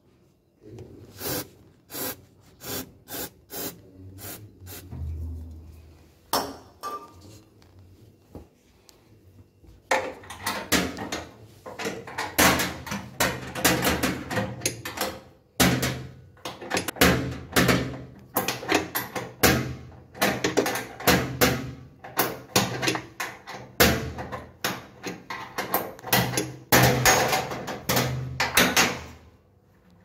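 Metal tool clicks and knocks from a spanner working the shock absorber mounting bolts inside a Bosch front-load washing machine. Sparse clicks at first, then a dense run of rapid clicking and knocking from about a third of the way in until just before the end.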